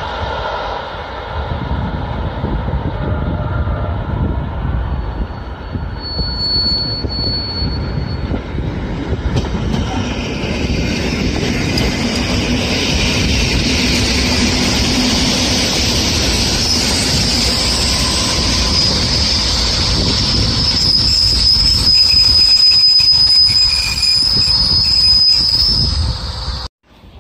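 SKM EN57-family electric multiple unit passing close by: rumble of wheels on the track with a high-pitched wheel squeal that grows louder from about ten seconds in and holds through the pass. The sound cuts off suddenly just before the end.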